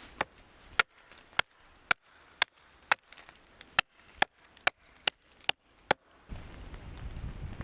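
Wood being chopped for the fire: a dozen or so sharp blade strikes at roughly two a second. After about six seconds the strikes stop and a steady low noise takes over.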